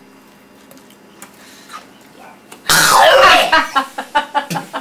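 A man sputters and spits out a mouthful into a sink, then gags and coughs in a quick run of short retching bursts, a reaction to the taste of aftershave-flavoured snow cone. The loud sputter comes about halfway through, after a quiet start.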